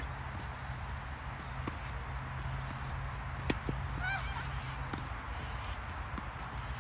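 Tennis ball struck by rackets in a baseline rally: about four sharp hits, roughly one and a half seconds apart, over a steady low rumble and hiss. A few short chirps come about four seconds in.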